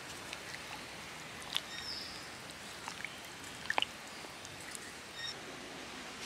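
Coconut-milk moringa curry simmering in a clay pot over a wood fire, with scattered small pops and clicks over a steady hiss. A few short bird chirps come in, one about two seconds in and another near the end.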